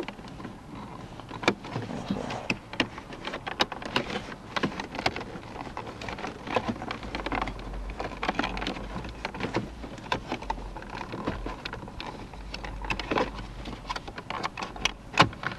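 The ashtray assembly in a 2000 Mercedes CL500's centre console being jiggled and forced loose: a dense run of irregular plastic clicks, knocks and rattles.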